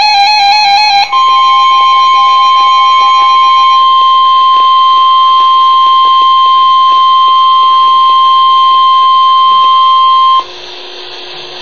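Emergency Alert System attention signal: a single steady 1050 Hz alert tone, the weather-alert tone that comes before the spoken alert message. It starts about a second in after a brief warbling tone pattern, holds loud and unchanging for about nine seconds, then cuts off abruptly to a low hiss.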